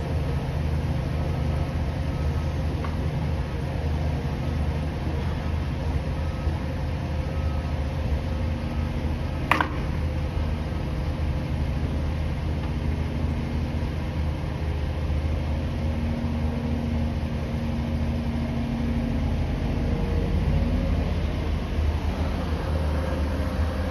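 Engine idling steadily with a low rumble, with one sharp clack about nine and a half seconds in.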